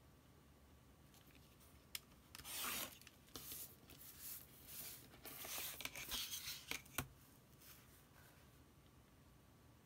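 Snap-off utility knife slicing through heavy printer paper along a ruler: a tick about two seconds in, then several seconds of scratchy cutting strokes that end in a sharp click.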